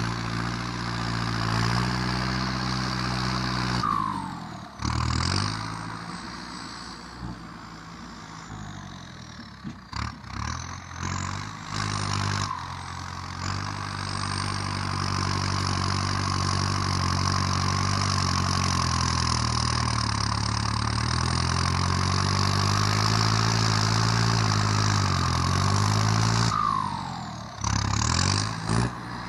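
Kubota tractor's diesel engine with an aftermarket racing exhaust, running hard with its note rising and falling. The engine drops off briefly three times: about four seconds in, around ten to twelve seconds in, and near the end.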